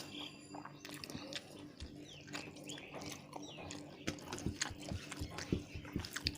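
Close-miked wet chewing and lip-smacking from someone eating rice and curry, with many quick clicks and squelches of the mouth. A low steady hum runs underneath.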